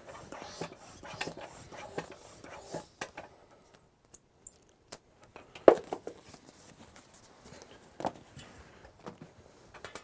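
Hands handling a bicycle wheel and its rubber tire: rubbing and scuffing with many light clicks and knocks, busiest in the first few seconds. A sharp knock comes just before the middle and a smaller one later.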